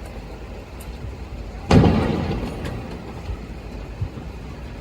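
A firework bursts with a single boom about two seconds in, its rumble dying away over about a second, over a steady low background rumble.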